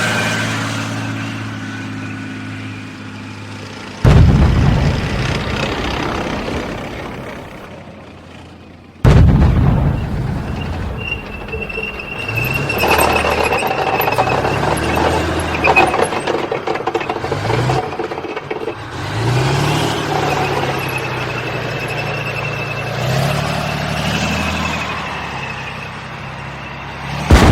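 Tank engine running and fading away, then a tank's main gun firing: three sudden loud blasts, about four and nine seconds in and again at the very end, each followed by a long rumbling decay. Between the shots a tank engine revs up and down, with a steady high squeal running alongside.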